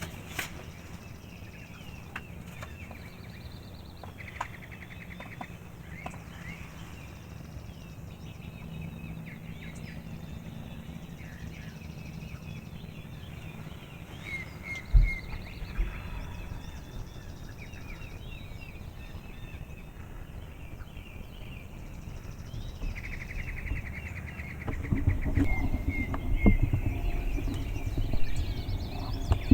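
Several songbirds chirping and trilling. About halfway there is a single thump, and in the last few seconds the loudest sounds come in: low rumbling knocks and bumps close to the microphone.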